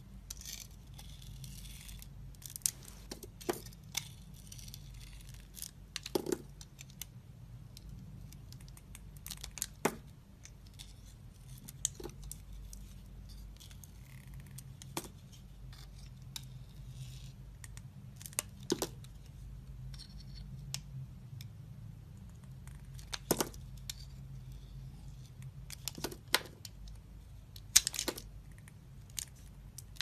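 Snap-off utility knife blade cutting into dry bar soap: soft scraping, broken by sharp cracks and clicks as pieces break away, at irregular intervals of one to three seconds.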